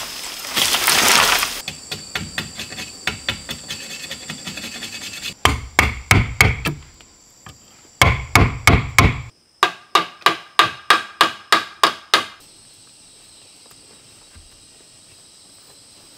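Bamboo leaves rustling as a bamboo stalk is dragged down, then a blade chopping at bamboo in quick runs of knocks, about five a second. The knocks are light at first and grow heavier from about five seconds in, stopping after about twelve seconds.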